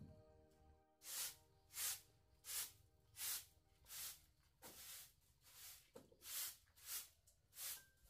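Grass broom sweeping a concrete floor in steady strokes, starting about a second in, roughly one swish every two-thirds of a second.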